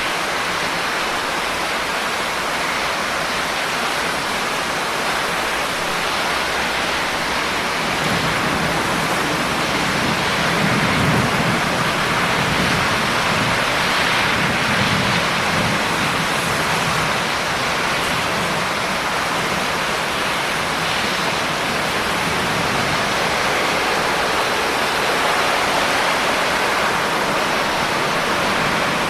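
Heavy rain falling as a steady hiss. A low, rolling rumble of thunder comes in about eight seconds in, swells, and dies away over the following ten seconds or so.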